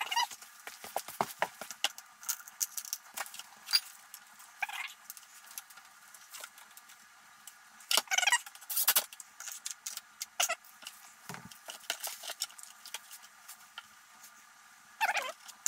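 Scattered clicks, taps and short scrapes of hand work on the plastic and metal parts at the back of a snowmobile, with a cordless drill being picked up and set down. Two louder brief scraping bursts come about eight and nine seconds in, and another near the end.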